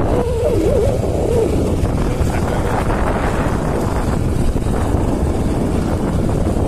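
Wind buffeting the phone's microphone over a motorcycle's running engine while riding, a steady loud rush. A short wavering tone sounds in about the first second and a half.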